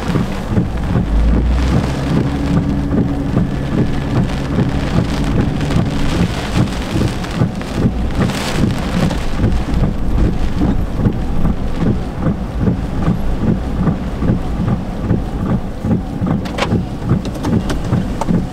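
Hurricane wind and heavy rain: a loud, dense, steady rush with a low rumbling buffet that never lets up.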